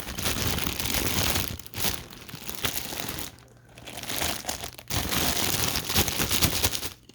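Stiff plastic packaging crinkling and crackling as it is pulled and twisted by hand, in several bursts with short pauses: the plastic is not giving way.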